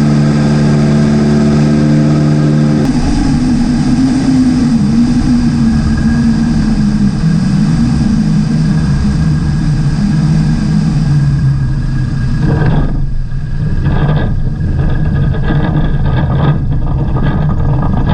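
Light single-engine airplane's piston engine and propeller droning steadily in flight. About three seconds in the sound changes abruptly, after which the engine note wavers and slowly sinks in pitch, with a few brief dips near the end.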